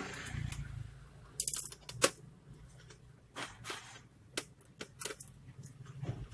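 Sharp clicks and taps from a laptop and its small parts being worked on by hand: two louder clicks in the first two seconds, then a scatter of lighter ones.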